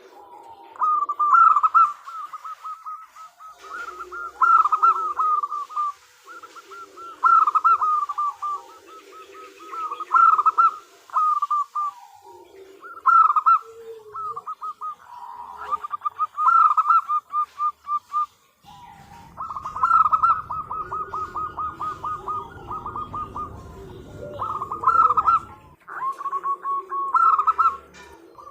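Zebra dove (perkutut) cooing in repeated staccato phrases with short pauses between them, given as a female calling to draw a male. A low rumble sits under the calls for several seconds past the middle.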